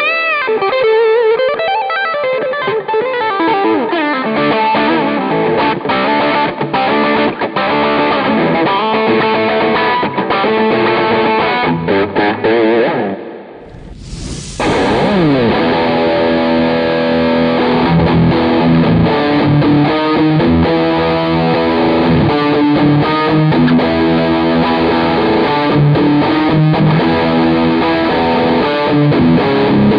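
Sqoe SEPRS 900 electric guitar played on its bridge humbucker, first with an overdriven tone, with bends and slides near the start. After a brief pause and a short hiss about halfway through, it comes back with heavier distortion, playing chords and riffs.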